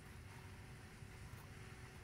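Near silence: faint steady room noise with a low hum.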